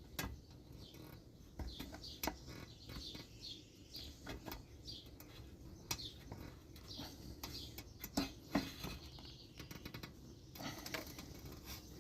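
Irregular clicks, taps and light scrapes of hand work on a lawn mower's fuel line and hose clamps, with short high squeaks through the middle.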